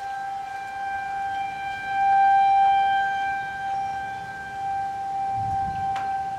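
Federal Signal 2001 rotating outdoor warning siren sounding a steady single-tone alert for a real emergency, not a test. It swells loudest about two seconds in, then slowly fades.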